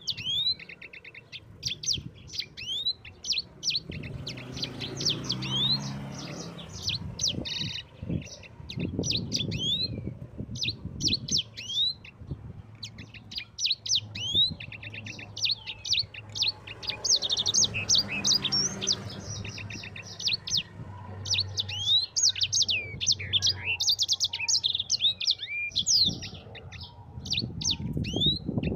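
Yellow-fronted canary singing a fast, continuous chattering song of high chirps, quick down-slurred notes and short buzzy trills, with a brief lull about twelve seconds in. A faint low rumble lies underneath.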